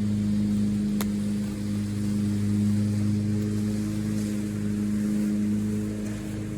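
An engine running steadily at idle, a low even hum with one sharp click about a second in.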